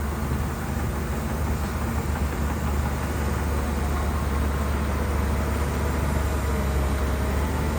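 Shantui bulldozer's diesel engine running steadily under load, a deep constant drone with a noisy rumble above it.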